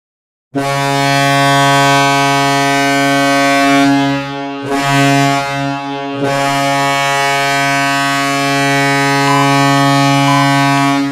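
Hockey arena goal horn blaring in long, deep, steady blasts, with two brief dips about four and six seconds in.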